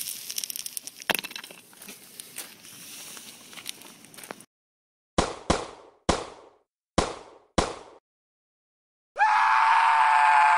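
Plastic bag of paintballs crinkling and rustling for about four seconds. After a sudden cut to silence, five sharp shots come in quick succession over about two and a half seconds. Near the end there is a loud, steady, high-pitched sound of about a second and a half.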